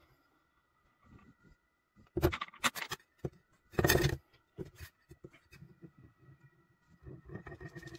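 A thin abrasive cutting disc, just taken off an angle grinder, clattering down hard onto a tabletop several times, then rattling in quick small taps as it spins and wobbles down on its edge.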